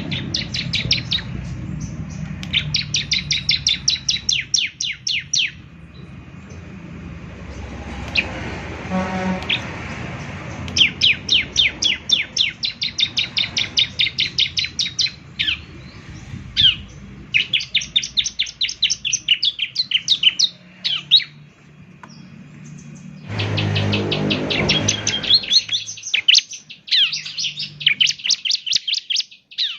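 Bar-winged prinia (ciblek) singing: fast rattling trills of sharp, high chirps, about ten notes a second, in several bouts with short pauses between them. A low muffled noise runs under the song for a couple of seconds about three-quarters of the way through.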